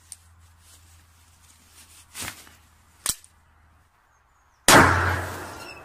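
A revolver shot: one loud, sharp crack about three-quarters of the way in that rings out and dies away over about a second. Before it come two fainter cracks, the second of them sharp.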